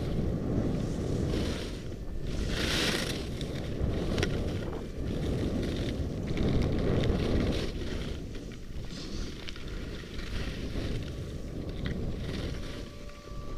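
Wind buffeting the microphone of a skier's helmet or body camera during a downhill run, a steady low rumble, with the hiss of skis scraping over packed snow on the turns, loudest about two and a half seconds in.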